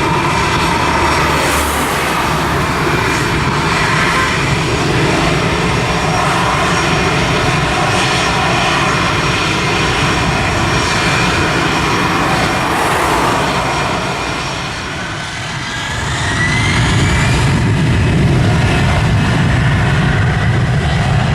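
Airliner engines running loud and close, a dense roar with a short dip about three-quarters through. Then a rising whine comes in, and the low rumble grows heavier.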